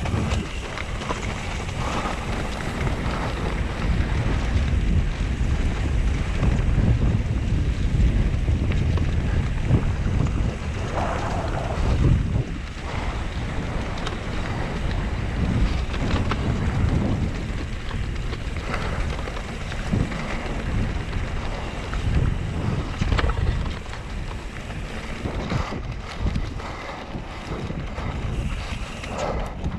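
Wind buffeting the camera microphone over the steady low noise of mountain bike tyres rolling on a dirt trail at speed, the loudness swelling and dipping with the terrain.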